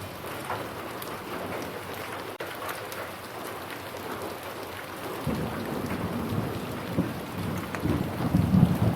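Steady rain falling, with the ticks of single drops. A low rumble of thunder rises about halfway through and swells to its loudest near the end.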